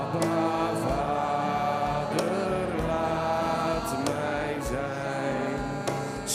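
Church congregation singing a slow Dutch worship song together with band accompaniment, over a steady low beat about twice a second.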